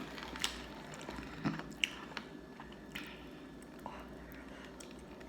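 A person chewing a mouthful of fried takeout food close to the microphone: soft wet mouth sounds with scattered small clicks.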